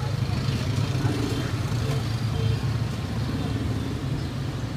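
Street ambience: a steady low rumble of passing traffic with faint voices in the background.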